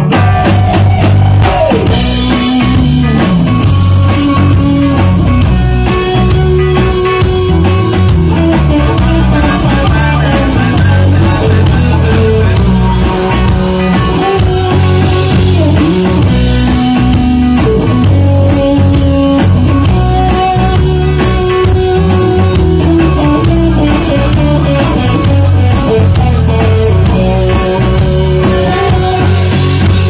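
A rock band playing live: a drum kit keeping a steady beat under electric guitar lines and a stepping bass.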